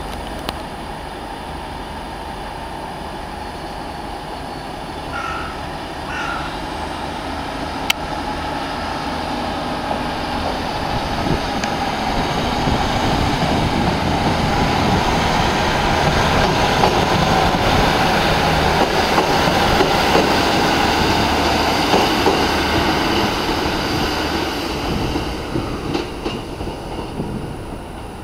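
Northern Class 156 Super Sprinter diesel multiple unit pulling away and passing by: its underfloor Cummins diesel engine running and its wheels rolling on the rails. The sound grows to a peak about two-thirds of the way through, then fades as the train draws away. Two short high beeps come about five seconds in.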